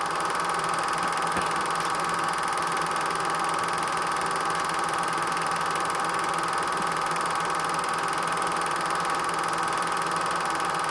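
8mm film projector running: a steady mechanical whir with a strong mid-pitched hum and hiss, unchanging throughout.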